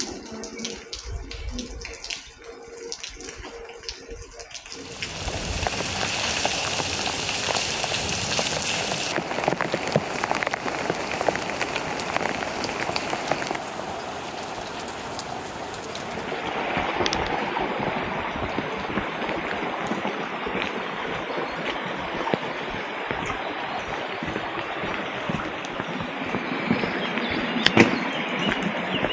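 Steady rain falling, with scattered drops clicking on hard surfaces. The rain comes in much louder about five seconds in, after a quieter start.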